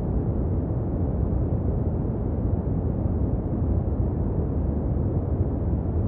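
A steady, deep rumbling noise with no distinct events, its weight in the low end and little treble.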